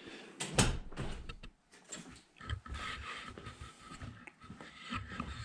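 Irregular knocks, bumps and footsteps on a concrete floor as a handheld action camera is carried around a workshop; a sharp knock about half a second in is the loudest. A faint steady whine comes in after about two and a half seconds.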